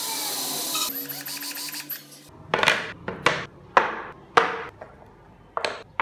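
A loud harsh rasping noise for about two seconds, then five sharp wood-on-wood knocks, spaced roughly half a second to a second apart, as a carved wooden car body is set down against a wooden base board.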